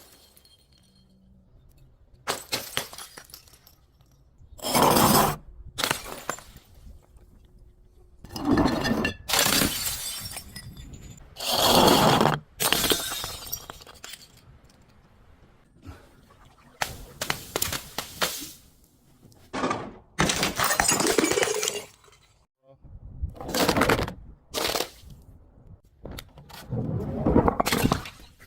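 Glass bottles breaking and crunching in about a dozen separate crushing bursts, some short and sharp, others a longer crunch lasting a second or more.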